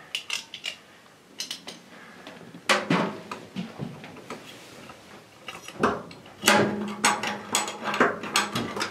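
Irregular clicks, clinks and scrapes of a bathtub overflow drain assembly being handled and fitted at the tub's overflow opening, sparse at first and busier over the last few seconds, when a low steady hum joins in.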